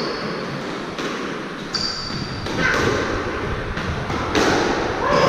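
Squash rally: a series of sharp smacks as the ball is struck by racquets and hits the court walls, with short high squeaks of sneakers on the wooden floor near the start and around two seconds in.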